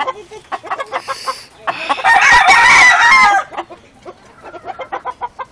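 A rooster crows once, loudly, about two seconds in, for under two seconds. Short faint clicks come before and after the crow.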